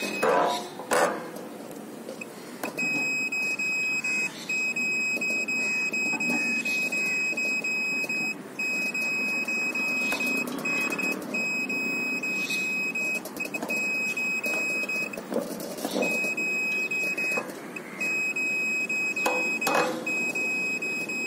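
A couple of knocks near the start from handling the dish mount. Then a satellite finder's high, steady beep tone comes in about three seconds in and holds, dropping out briefly now and then, the tone it gives while picking up a satellite signal.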